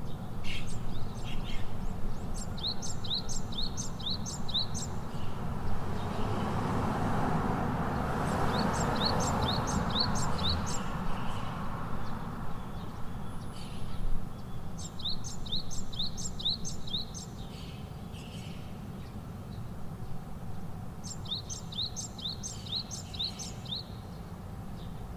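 A songbird singing the same short phrase of five or six quick, high chirped notes four times, about every six seconds, over a steady low rumble of background noise.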